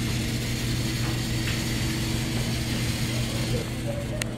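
Steady whirring hum of a small line-following robot's servo drive motors as it drives along the line, with a sharp click about four seconds in.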